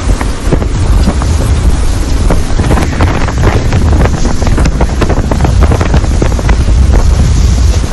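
Storm-force wind buffeting the microphone: a loud, steady low rumble under a rushing hiss, with rapid crackling flutters as gusts hit.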